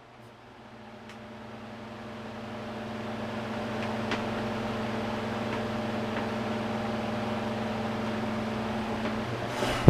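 Knapp-Monarch-built 10-inch Hoover table fan running, its electric motor giving a steady hum under the whoosh of the blades. The sound grows louder over the first few seconds and then holds even.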